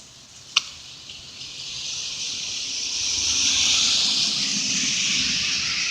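A vehicle passing on a rain-wet road: tyre hiss with a low rumble under it, swelling to a peak midway and fading again. A single sharp tick, like a drip striking something hard, comes about half a second in.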